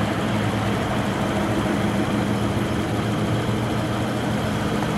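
Engines of cars and pickup trucks running as they crawl past at walking pace: a steady low engine hum with no revving.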